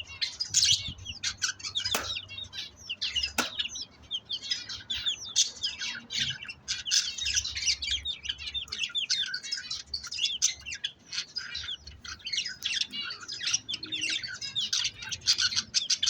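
A pair of budgerigars chattering and warbling continuously in fast, overlapping high chirps, with a couple of sharp clicks early on.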